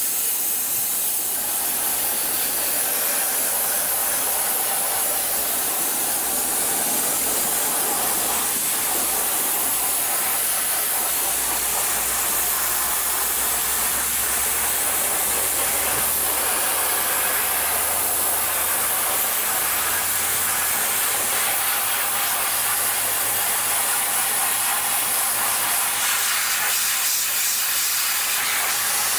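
Dry ice blasting gun spraying a continuous jet of dry ice pellets onto a car's rear suspension and brake parts: a loud, steady hiss of compressed air and ice, with the pressure turned back up after light-pressure work.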